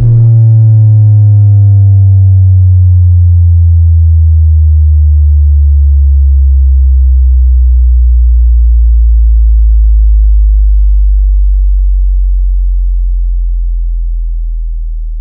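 Deep synthesized vibration-bass tone from a DJ sound-check track. It starts with a sharp hit and glides slowly downward in pitch, very loud, then fades away near the end.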